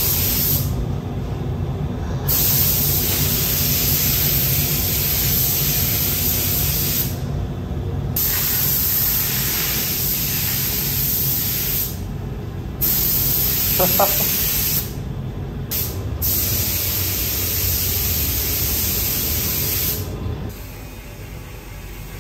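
Air-fed gravity-feed paint spray gun hissing as it sprays paint onto a car body, in long passes broken by several short pauses. A steady low hum runs underneath.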